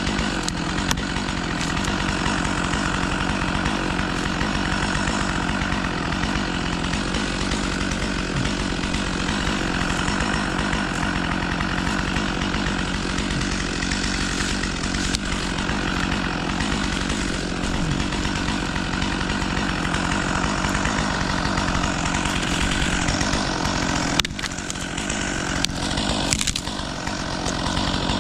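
Chainsaw running steadily, with a brief dip in level near the end.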